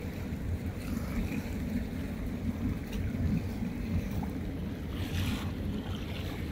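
Distant rumble of a four-engined jet airliner climbing away, mixed with wind on the microphone, with a brief hissy gust about five seconds in.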